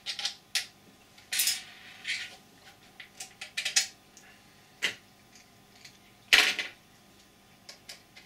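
Hard 3D-printed plastic parts of an FGC9 airsoft springer replica clicking, knocking and scraping as they are handled and fitted together, with a louder knock about six seconds in.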